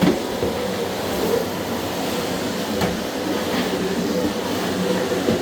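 Miele CX1 Blizzard bagless vacuum cleaner running steadily, its motor giving a constant hum with a steady tone. A few short knocks from handling the cleaner come at the start, about three seconds in and near the end.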